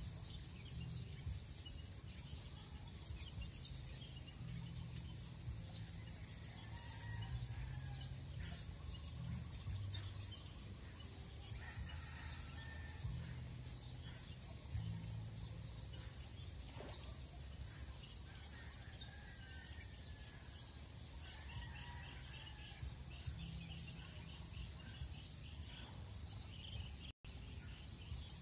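Outdoor rural ambience: birds chirping now and then over a low rumble, with a steady high-pitched whine throughout.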